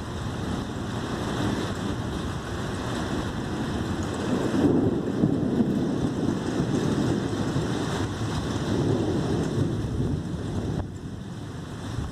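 Thunderstorm wind rushing and buffeting the microphone, a steady noise with low rumbling swells that drops off briefly near the end.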